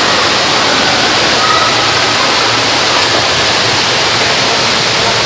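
Steady, loud rush of falling and splashing water from the water features of an indoor waterpark.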